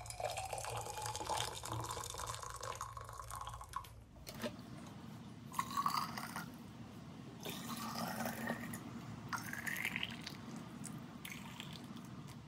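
Just-boiled water poured from an electric kettle into glass jars, one jar after another, to sterilize them. There is a pour of about four seconds, then three shorter ones, and the pitch of each rises as the jar fills.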